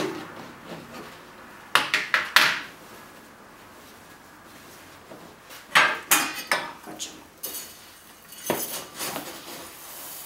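Kitchen clatter: knocks and clinks of a plastic box and a spoon against stainless steel pots, in three short clusters about 2, 6 and 9 seconds in.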